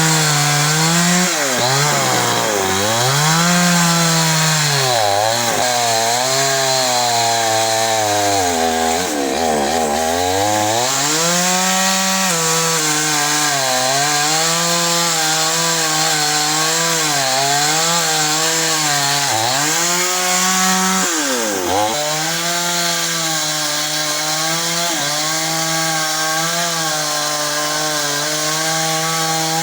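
Chainsaw running at high revs and cutting through a fallen tree trunk. Its pitch sags several times as the chain bites into the wood, with a deep drop around nine seconds in, and climbs back each time the load eases.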